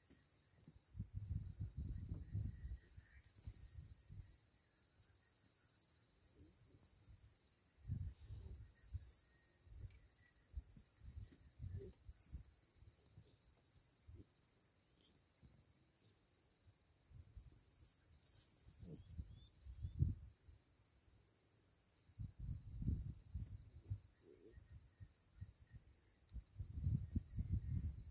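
Crickets chirring, a steady high-pitched insect chorus without a break. Under it, faint low rumbles and bumps on the microphone come and go several times.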